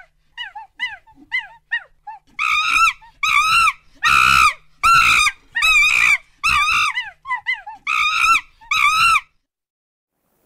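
Monkey calling: a few short, quiet downward chirps, then a run of about ten loud, high-pitched arching screams about half a second apart. The calls stop about nine seconds in.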